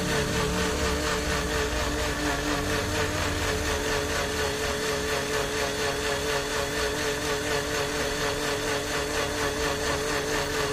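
Electric blender motor running steadily with water in the jar: a long test run of the rebuilt blade assembly fitted with a new bearing, checking it for leaks. It is switched off abruptly at the very end.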